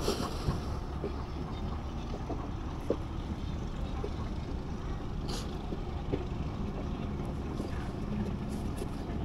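Steady low drone of a boat engine on the river, with a few light clicks over it.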